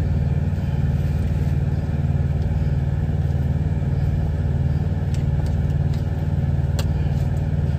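Steady low drone of a semi truck's idling diesel engine, with two light clicks of metal tongs against the frying pan, about five and seven seconds in.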